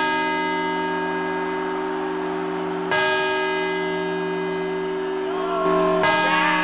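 The Puerta del Sol clock bell striking the New Year's midnight chimes (campanadas), one stroke about every three seconds: three strokes, each ringing on with a long, many-toned hum.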